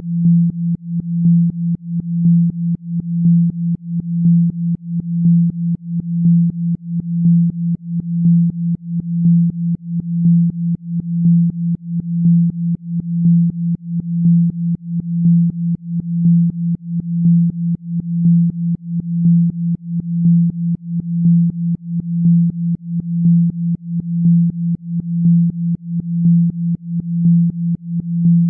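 Low electronic tone of a Rife-style healing frequency, held at one pitch and pulsing in a regular beat about twice a second.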